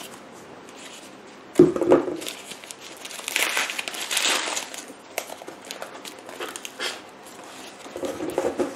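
Packing paper and tape crinkling and tearing as they are cut and pulled off a potted orchid, with a sudden knock about one and a half seconds in.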